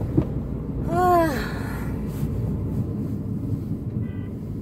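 Steady low rumble of a car driving, heard from inside the cabin. About a second in, a short hum rises and falls in pitch, and a faint short beep sounds near the end.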